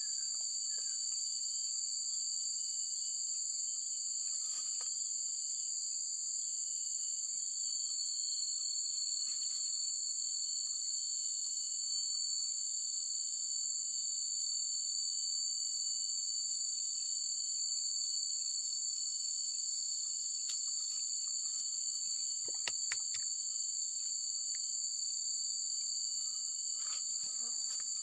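Steady high-pitched drone of an insect chorus, two continuous unbroken tones, with a few faint clicks now and then.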